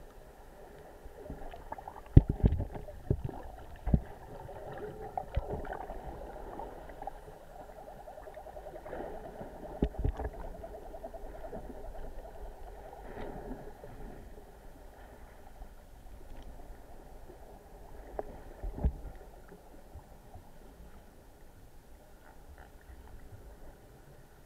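Underwater sound picked up by a snorkeler's camera in the sea: a muffled, steady hum and rustle with a buzzing texture through the middle, and several dull knocks, the loudest about 2, 10 and 19 seconds in.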